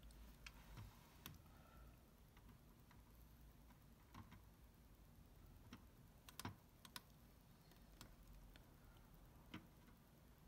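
Near silence with faint, scattered small clicks and taps, about nine of them at irregular spacing, from small tools and parts handled while soldering a battery onto a circuit board.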